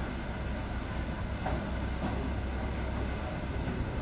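Steady low rumble of wind buffeting the microphone, with a single faint knock about a second and a half in.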